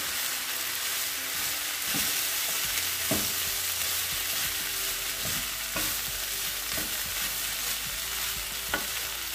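Cooked rice sizzling as it fries in a non-stick sauté pan. A wooden spatula stirs and turns it, with a few short knocks and scrapes against the pan.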